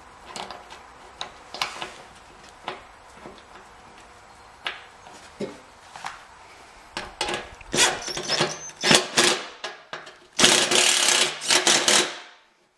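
Metal parts clink and rattle as a pulley, spacer and bracket are fitted on a steel mower deck. Near the end a cordless impact driver hammers the pulley bolt tight for about a second and a half, then stops suddenly.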